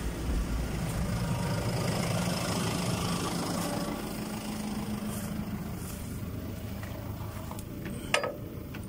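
Fendt 310 tractor engine running steadily at idle, its hum dropping a little about halfway through. A single sharp knock near the end.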